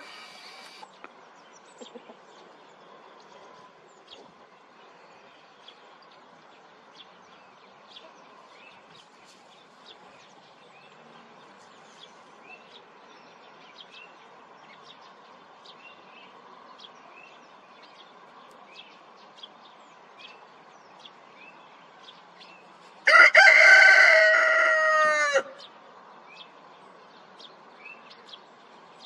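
A rooster crows once, one loud call of about two and a half seconds, starting a little over three-quarters of the way through. Faint short chirps run underneath throughout.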